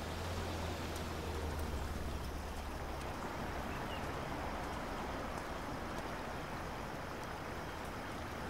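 Steady outdoor ambience: an even hiss, with a low hum underneath that drops away about three seconds in.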